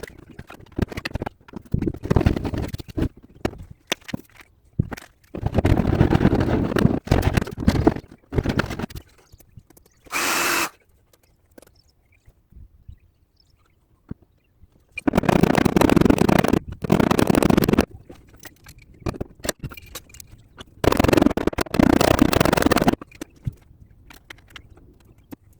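Bursts of tool work on a car's steel body panel, each one to three seconds long, with clicks and rattles in them and quieter gaps between; a short, sharper high-pitched burst about ten seconds in.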